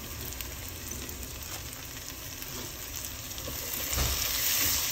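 Sliced onions and spices sizzling in mustard oil in a pot while a wooden spatula stirs and scrapes through them. The sizzle grows louder about four seconds in, as the onions are turned.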